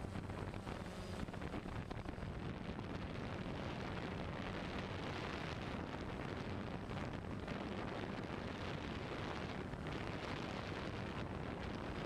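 Steady rushing noise, like wind buffeting the microphone.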